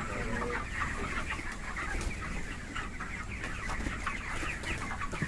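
A flock of broiler chickens clucking and cheeping, a dense, continuous chorus of many short calls.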